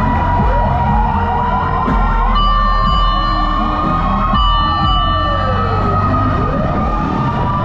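Several fire truck sirens sounding at once: one wails, its pitch sliding slowly down and back up, over steady high tones from another that change pitch every couple of seconds, with a low rumble underneath.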